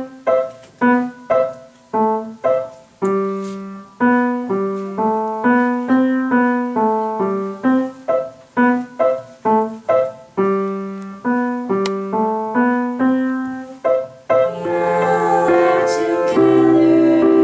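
Piano playing a simple melody one note at a time, each note struck and left to fade, about two to three notes a second. Near the end it changes to fuller, held chords.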